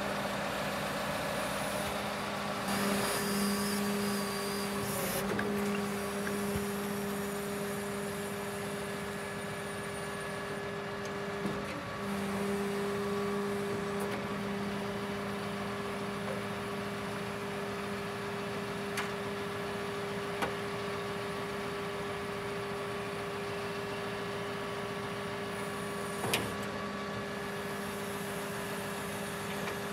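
Scania R730's V8 diesel running steadily while the Hiab XS 211 HiPro loader crane's hydraulics work to fold the boom, a steady hum. A few sharp clicks and knocks come from the crane, the loudest near the end.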